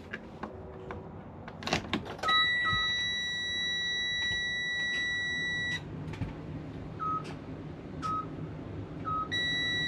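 Freightliner Cascadia cab warning alarm: a steady high buzzer tone of about three and a half seconds, starting about two seconds in after a few clicks, then short single chimes, and the steady tone sounding again near the end.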